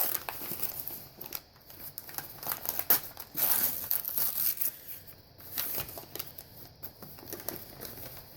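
Paper or plastic packing material crinkling and rustling as it is pulled out of a cardboard mailing box, with a few short tearing sounds.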